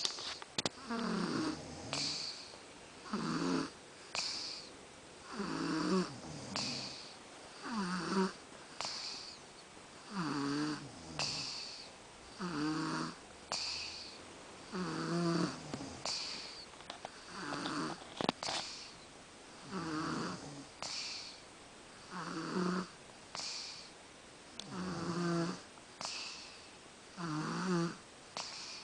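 A sleeping person snoring steadily, about one breath every two to two and a half seconds. Each breath brings a low rattling snore, followed by a higher airy, hissing breath.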